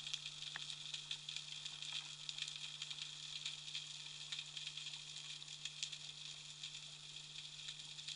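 Underwater ambient sound: a dense, steady crackle of many tiny clicks, like the snapping of shrimp and other small sea life, over a low steady hum.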